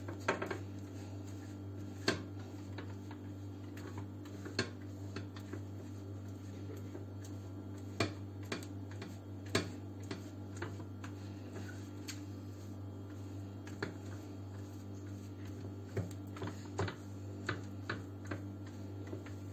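Scattered light clicks and taps as a silicone pastry brush spreads oil over a metal baking tray and the tray shifts on the counter, about one every second or two at irregular intervals, over a steady low hum.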